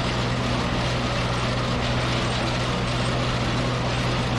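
Ford 7710 tractor engine running at a steady speed with a constant hum and a mechanical rattle.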